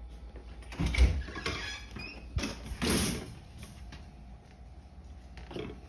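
Interior door being opened, with a few short knocks and rustles about one, two and a half and three seconds in.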